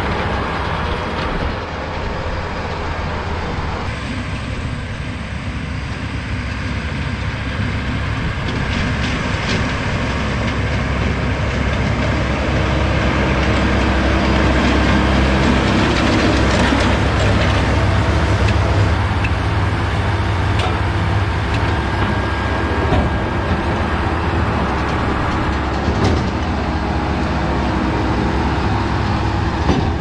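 Kubota tractor engine running under load while the Claas Variant 465 RC round baler picks up and rolls hay into a bale: a steady low machine drone with scattered clattering, growing a little louder midway.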